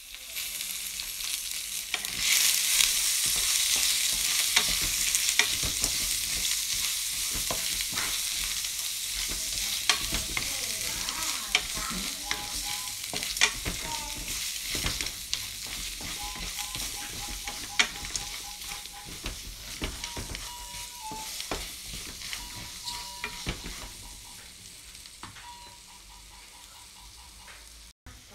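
Popcorn kernels and melting chocolate sizzling in a hot nonstick pan while a spatula stirs and scrapes through them, with frequent sharp clicks of kernels and spatula on the pan. The sizzle jumps up about two seconds in and then slowly fades toward the end.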